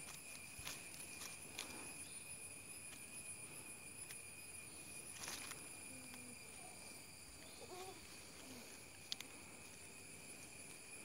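Faint, steady high-pitched insect chorus, with a few soft clicks and rustles from hands working in the fibrous leaf base of a coconut palm; the sharpest click comes about nine seconds in.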